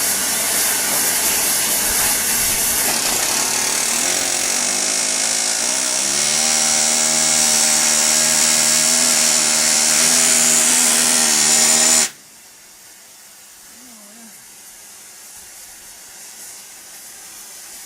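A power tool running, a loud steady hiss with a motor whine that builds in from about four seconds in and rises a little. It stops abruptly about twelve seconds in, leaving only a faint background.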